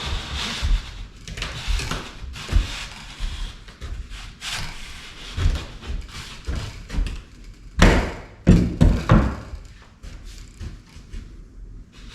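Hand scraper working popcorn texture off a ceiling: irregular scraping strokes with knocks and thumps, the loudest cluster of knocks about eight seconds in.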